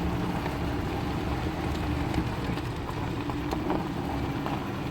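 Inside a car driving slowly: steady engine and road hum, with scattered small clicks and ticks from the tyres and body over rough ground.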